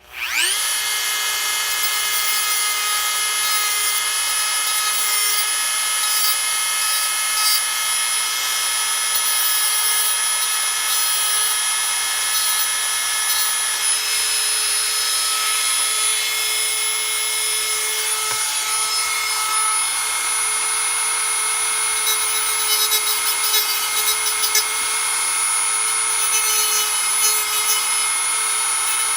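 Dremel rotary tool switched on, spinning up within the first half second to a steady high whine, then running steadily while it smooths and notches the base of a Hot Wheels 4x4 truck for a wheel swap.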